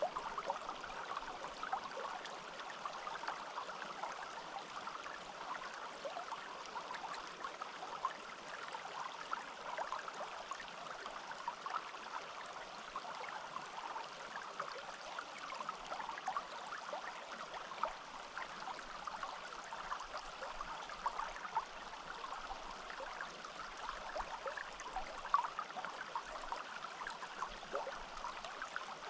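A small forest stream babbling and trickling over stones, a steady flow of water with many little splashes and gurgles.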